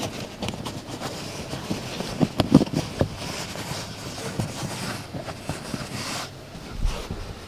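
Hand rustling and scraping against car carpet and plastic trim while pushing a dash cam power cable in behind the carpet, with scattered small knocks and clicks, a cluster of them about two to three seconds in.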